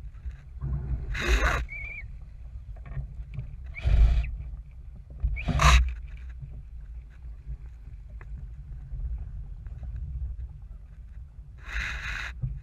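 Feva sailing dinghy under way: a steady wind rumble on the microphone, with four short bursts of water splashing and rushing along the hull.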